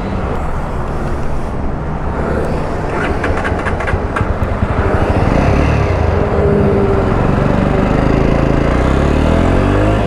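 Motorcycle engine pulling away from a stop and accelerating, its revs climbing steadily through the second half, with road and wind noise from riding.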